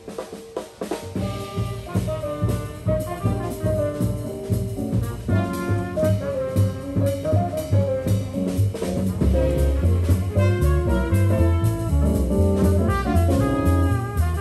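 A small jazz band playing live: a trombone and other horns carry the melody over upright bass and drums. The music starts about a second in, and the bass notes grow stronger about nine seconds in.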